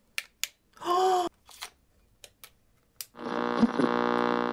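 FosPower Model A1 emergency weather radio being switched and operated by hand: a few sharp button clicks, a short electronic chirp about a second in, then a steady electronic buzz from its speaker starting about three seconds in.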